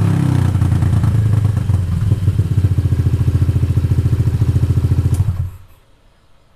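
Honda ADV 150's single-cylinder engine running through a straight Yoshimura exhaust with the dB killer removed, loud, settling at a steady idle with a rapid, even exhaust pulse. The engine stops a little over five seconds in.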